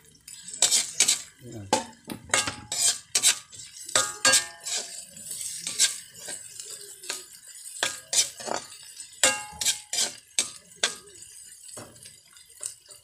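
Metal spatula scraping and clanking against a metal wok while stirring chopped garlic, onion and ginger sautéing in oil. The strikes come irregularly, several a second, some ringing briefly.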